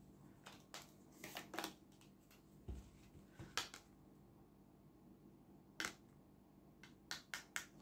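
Tarot cards being handled and laid out: scattered short clicks and flicks of card stock over faint room tone, with a quick cluster of them near the end.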